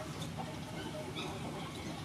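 Kitchen scissors snipping through a sole's fin, a faint snip shortly after the start, over a steady low background hum.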